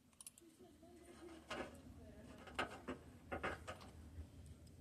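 Hand ratchet wrench clicking in a few short, scattered bursts of faint metallic clicks.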